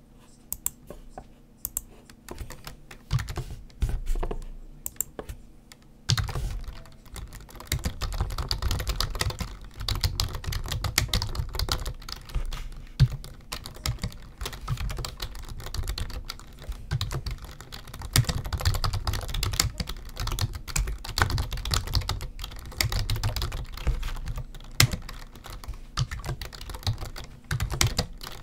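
Typing on a computer keyboard. A few scattered key clicks come first, then steady, fast typing starts about six seconds in and runs on.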